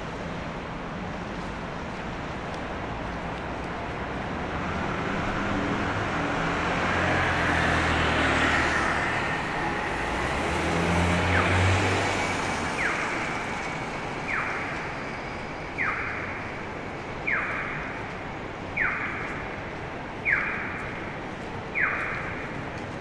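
City street traffic on a wet night: a steady hiss of rain and tyres, with a vehicle engine passing, loudest about eight to twelve seconds in. From about halfway, a short sound starts repeating about every one and a half seconds.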